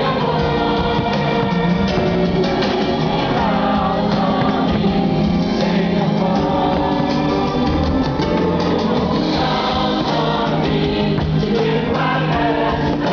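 A choir singing a patriotic song with instrumental backing, loud and continuous.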